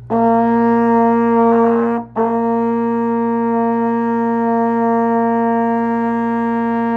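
Trombone holding out a steady high F with a full tone, cut by one short break about two seconds in and then sustained for about five more seconds.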